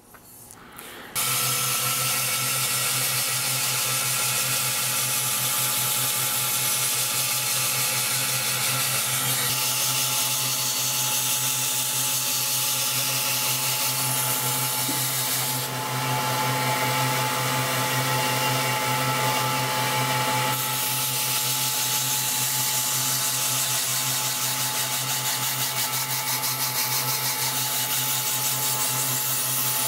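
Belt grinder running with a 100-grit belt while a steel chopper blade is ground against it, a steady motor hum under the hiss of abrasive on steel, starting about a second in. This is the rough grinding that rolls a convex edge into the blade.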